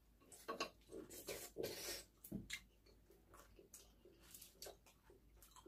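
Faint eating sounds of fried chicken being chewed and handled: scattered short soft clicks and rustles, mostly in the first two and a half seconds, with a few more a little after four seconds.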